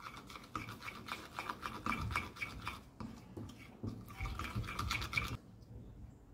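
A spatula stirring and scraping a thick mix of white glue and toothpaste around a glass bowl in quick, rapid strokes. There is a short pause about three seconds in, and the stirring stops suddenly about five and a half seconds in.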